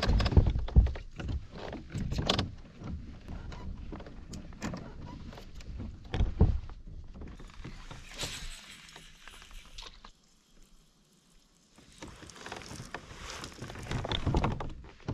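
Irregular knocks and thumps from a fishing kayak and the gear on it, the loudest in the first few seconds, with a short quiet spell about ten seconds in.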